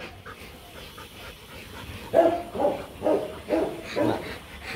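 Rottweiler barking, about five barks in quick succession, roughly two a second, starting about two seconds in.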